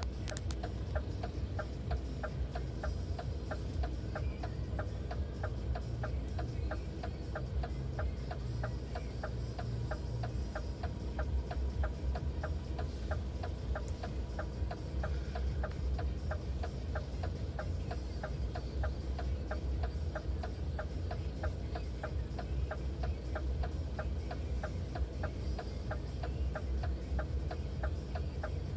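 Steady, even ticking about three times a second, like a hazard-warning flasher relay, over the low rumble of an idling engine, heard from inside a stopped vehicle.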